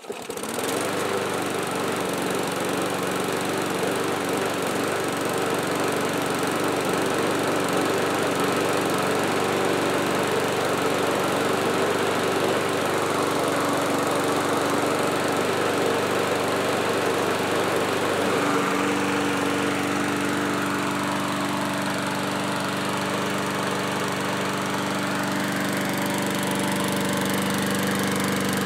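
Small single-cylinder four-stroke engine of an MTD walk-behind lawn mower catching right at the start and running, its first run after the refurbishment, with a suspicion of water in the cylinder. The running note wavers at first and settles steadier about two-thirds of the way in.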